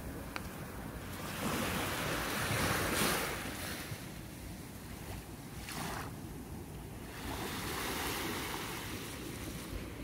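Small waves washing onto a sandy beach, the surf swelling twice: about a second and a half in, and again about seven seconds in.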